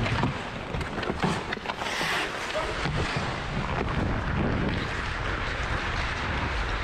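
Ice skate blades carving and scraping on the rink, with wind rushing over the helmet-mounted action camera's microphone. A few sharp knocks stand out in the first second and a half.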